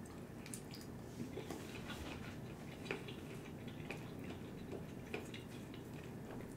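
Faint eating sounds: chewing of stir-fried noodles, with a few scattered soft clicks of a plastic fork in an aluminium foil tray.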